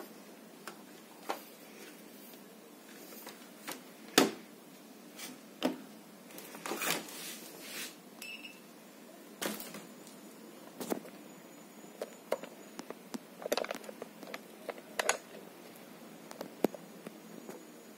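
Scattered plastic clicks and knocks from hands handling a small set-top box, its cable plugs and a TV remote, with a louder knock about four seconds in and a short rustle around seven seconds.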